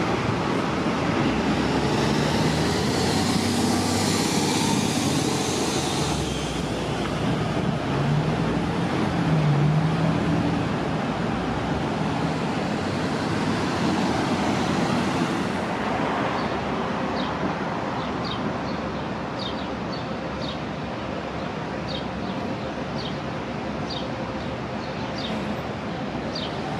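City transit buses running and moving through a bus terminal, one engine rising in pitch as it pulls away. Two stretches of loud hissing come near the start and at about the middle. Short high ticks sound through the second half.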